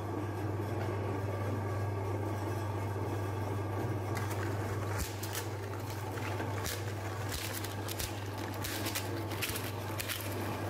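Electric meat grinder's motor running with a steady low hum. From about four seconds in, a run of sharp cracks and crunches as the small coloured ice-cream-cone cups are caught by the feed screw and ground up.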